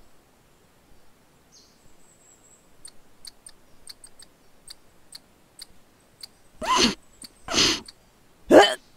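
Quick scattered ticks and tiny chirps of a squirrel sound effect scampering about. Near the end come two loud huffing breaths and a short groan-like breath from a woman's voice.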